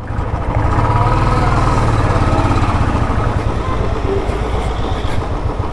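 Royal Enfield single-cylinder motorcycle engine running with a rapid, even beat as the bike pulls away at low speed.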